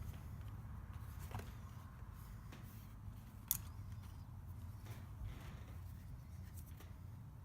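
Quiet handling of small parts: a couple of faint clicks and taps, the sharpest about three and a half seconds in, over a low steady hum.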